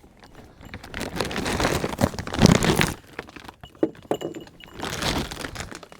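Water from a garden hose splashing into a goat water tub as it fills, swelling and fading twice, with a few light clicks in between.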